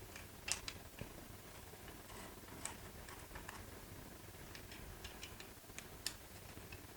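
Faint, irregular light clicks of an Allen wrench turning the screws of a buttstock's cheek rest as they are backed fully out, about eight to ten ticks spread unevenly.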